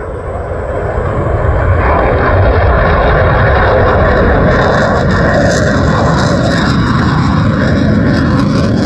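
F-22 Raptor fighter jet's twin turbofan engines roaring as it flies low past and pulls into a steep climb. The roar swells over the first couple of seconds, and a crackling hiss comes in about halfway through.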